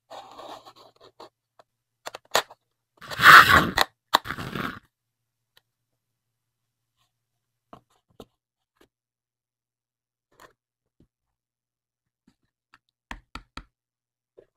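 Hands handling handmade cardboard and paper toy machines: a faint rustle of paper at first, a loud scraping, rustling stretch about three seconds in, then mostly quiet with a few light clicks and a short run of taps near the end.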